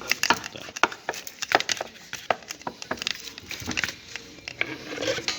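Irregular clicks and knocks of suspension parts being handled: a new rubber bump stop and plastic dust cover being fitted over a rear shock absorber.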